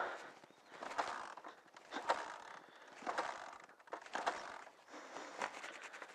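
Motorcycle kick-starter being kicked over again and again, about once a second, six strokes with a click each, and the engine not catching: a bike that will not start after getting water in it.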